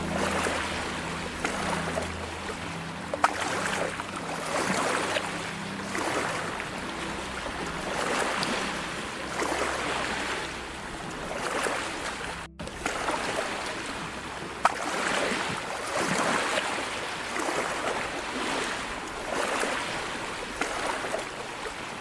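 Sea waves washing and lapping in surges every second or two. A low steady hum runs underneath and fades out a little past halfway, and the sound drops out briefly just before that.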